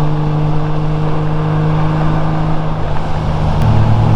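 Honda Goldwing GL1500's flat-six engine running steadily at cruising speed under wind and road noise. About three and a half seconds in, its pitch drops as the revs fall.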